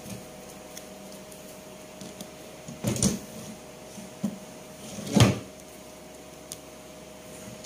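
Dresser drawers being pulled open and pushed shut while someone rummages through them: a pair of knocks about three seconds in and a louder bang about five seconds in.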